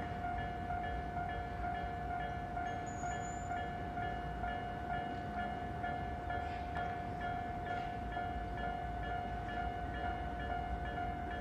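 Japanese railway level-crossing warning bell ringing in a steady, rapid repeating pattern, over a low rumble.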